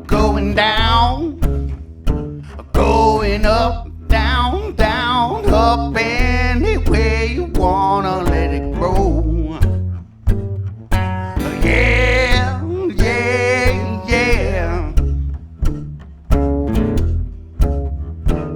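Live band playing a 12-bar blues: a low bass line moving under a lead melody that bends and wavers in pitch, with a steady rhythmic pulse.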